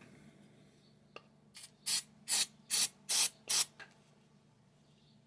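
Aerosol contact cleaner sprayed in five short hissing bursts, about two a second, onto the small motor's armature to clean the freshly filed brush contacts. A small click comes just before the bursts.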